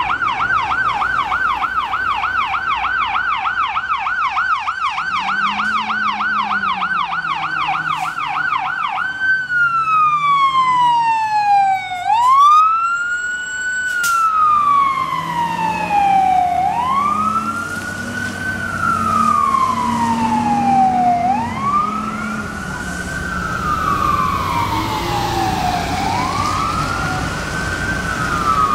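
Fire engine's electronic siren on a fast yelp, switching about a third of the way in to a slow wail that sweeps down and back up every four to five seconds as the truck drives past. A lower engine note sits underneath.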